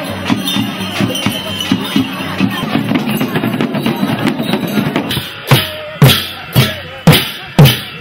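Music with drums and percussion. About five seconds in it changes to heavy, evenly spaced drum beats about twice a second.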